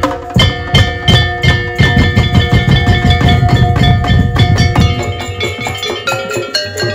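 A Daul Madura percussion ensemble playing: fast, dense drumming under ringing pitched percussion that holds a melody. The drumming thins out about five seconds in while the melody goes on.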